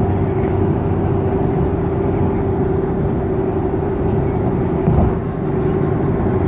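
Steady road and engine noise inside a moving car at highway speed, with a constant hum running under it. There is a brief bump about five seconds in.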